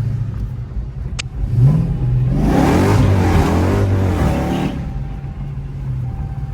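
Dodge Charger Hellcat's supercharged V8 with catless mid pipes, loud, rising in pitch about a second and a half in and opening up under hard acceleration for about two seconds before settling back to a steady cruise. The owner suspects an exhaust leak.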